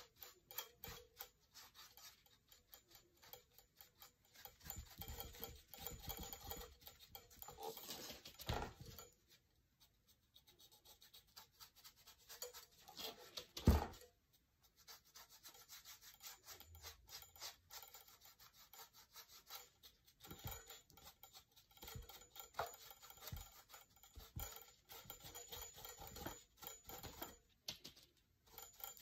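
Paintbrush rubbed and dabbed over a textured lamp base in quick scratchy strokes, working paint into a texture; faint, with pauses between runs of strokes. A sharp knock about 14 seconds in is the loudest sound, with a smaller one near 8 seconds.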